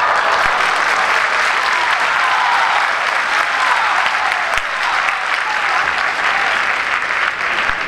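Steady crowd applause in a large arena hall.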